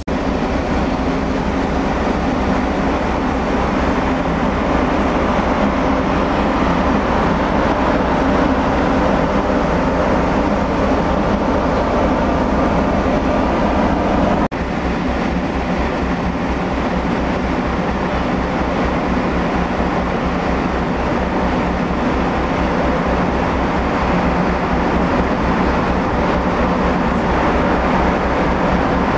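A large ship's engines running with a steady loud drone and a fast, even low throb, heard on deck. The sound breaks for an instant about halfway through, then carries on unchanged.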